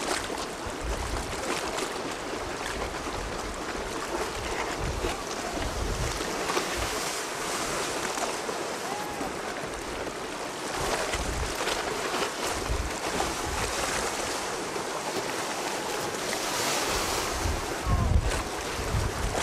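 Wind gusting against the microphone in repeated low rumbles over the steady wash of sea waves; the strongest gust comes near the end.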